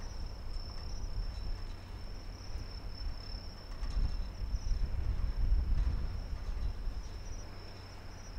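Crickets chirping in a steady high trill, over an uneven low rumble.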